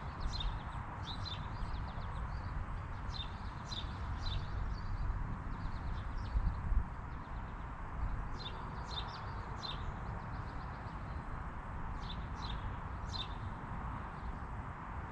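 Small birds chirping in short runs of quick, high chirps every few seconds, over a steady low rumble.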